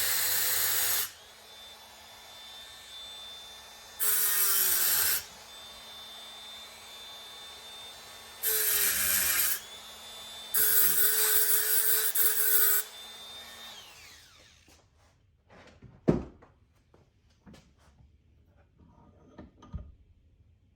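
A power tool with a cutting wheel spins with a steady whine. Four times it breaks into loud grinding as the wheel cuts through seized, rusted bolts. The whine then winds down, and a few clicks and knocks follow, one of them sharp.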